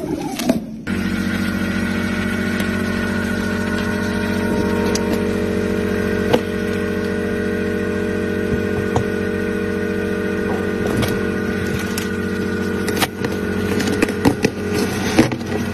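A motor drones steadily, starting about a second in, with scattered clicks and knocks on top, more of them near the end.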